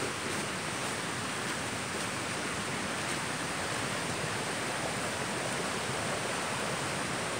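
Rain-swollen creek that is normally dry, running high and fast: a steady rush of water tumbling over rocks.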